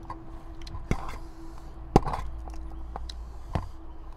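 Sharp clicks of eating utensils against a metal tray and sauce bowl while eating noodles and squid: three clicks about a second apart, the loudest about two seconds in, over a faint steady hum.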